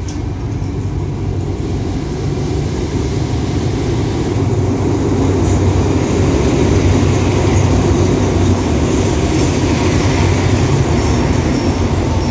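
Two Alsthom diesel-electric locomotives running past close by as they pull a passenger train into the station, a heavy low engine rumble that grows louder over the first half and stays loud as the train rolls along the platform.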